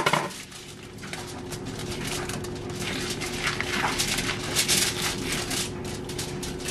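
Aluminium foil crinkling and rustling under gloved hands as the membrane is worked off a rack of raw pork ribs, with a sharp click right at the start. A faint steady hum sits underneath.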